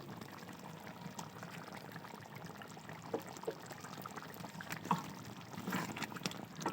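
Thick cornflour-thickened chilli chicken gravy bubbling and simmering in a pan, with scattered light clicks of a utensil against the pan.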